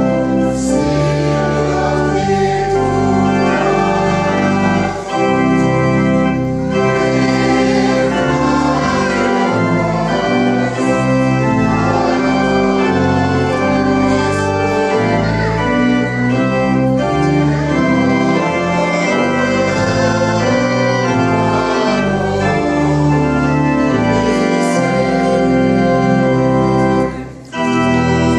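Church organ playing a recessional hymn in sustained, changing chords, with the choir singing along as it processes out. The music breaks briefly near the end, between phrases.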